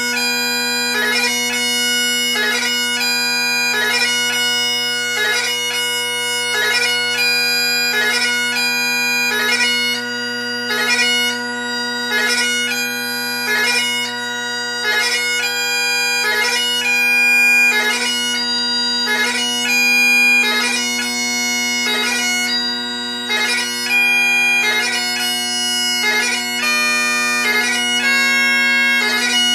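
Great Highland bagpipe played solo: steady drones sounding unbroken underneath while the chanter plays a melody, its notes split by crisp gracenote embellishments.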